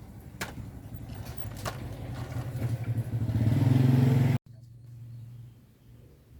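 Small toy vehicle motor running with a buzzing hum that grows louder for about four seconds, then cuts off suddenly; a fainter hum follows.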